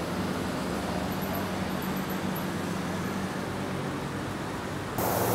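Steady city traffic hum with a low, even drone underneath. About five seconds in it switches abruptly to a louder rushing noise.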